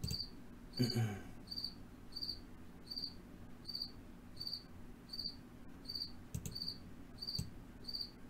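A cricket chirping steadily, short high chirps repeating about one and a half times a second. A brief low sound comes about a second in, and a couple of soft knocks come near the end.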